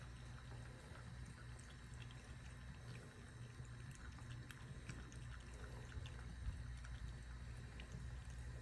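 Thin stream of running water trickling steadily, with faint scattered ticks of a cat lapping at it, over a low steady hum.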